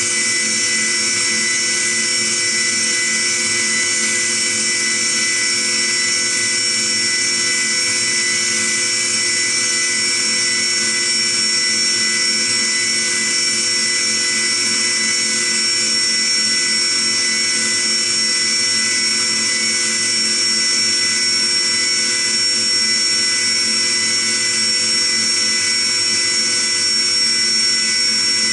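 Five-axis CNC machining center milling with a small end mill: the high-speed spindle whines steadily as the cut goes on, several steady high tones over a hiss, unchanging throughout.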